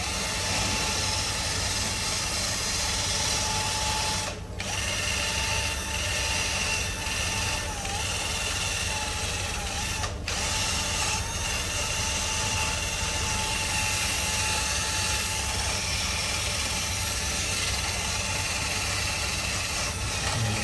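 A machine or power tool running steadily with a steady whine, dipping briefly twice.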